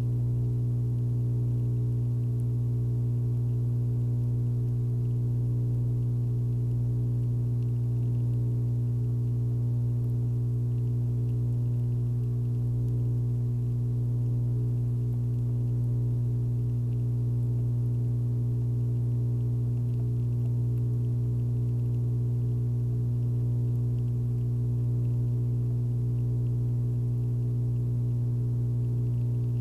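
A steady low electrical hum with a stack of evenly spaced overtones, unchanging in pitch and level.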